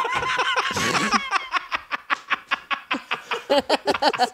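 Men laughing hard together: a high, wavering laugh in the first second or so, then a quick run of breathy laughing.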